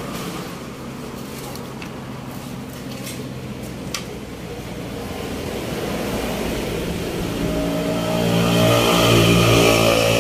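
A motor vehicle's engine running nearby, growing louder over the last few seconds until it is the loudest sound.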